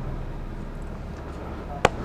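2007 Yamaha R6's inline-four engine idling steadily, with a single sharp click near the end.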